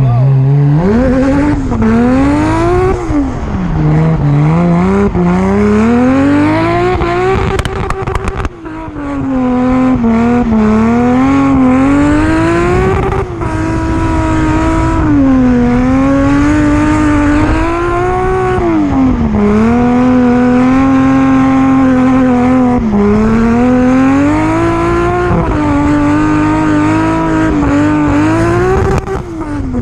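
Big-turbo 1.5JZ inline-six in a drifting Nissan 240SX, revving up and down over and over, with stretches held at high revs. About eight seconds in the revs and loudness drop briefly before the engine picks up again.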